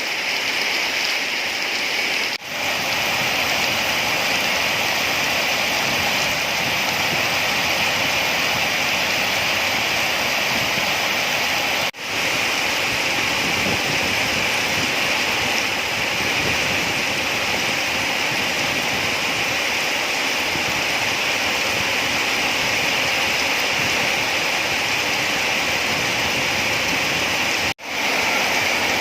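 Steady rain: a dense, even hiss of falling water, broken by three very short dropouts, about two seconds in, in the middle and near the end.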